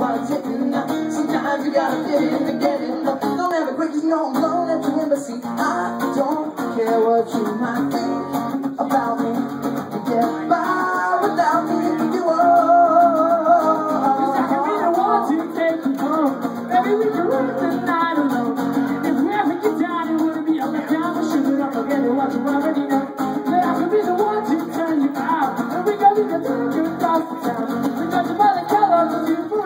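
Live acoustic music: an acoustic guitar strummed steadily while male voices sing.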